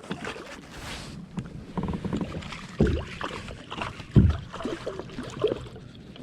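Knocks and thumps against a kayak's hull, with two heavier thumps about three and four seconds in, over a haze of water and handling noise.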